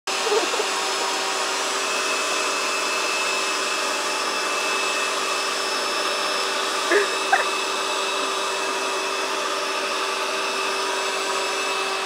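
Vacuum cleaner running steadily, an even motor noise that does not change. A couple of brief short sounds rise over it about seven seconds in.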